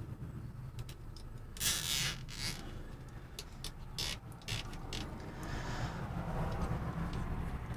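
Plastic cable tie and rubber timing belt being worked by hand on an acrylic printer carriage: scraping and clicking from about one and a half to five seconds in as the tie is pulled through. Under it runs the low rumble of a helicopter passing overhead, a little louder toward the end.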